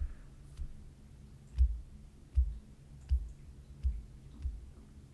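Computer mouse clicking during CAD work, with soft low thumps on the desk about every three-quarters of a second and a faint low hum underneath.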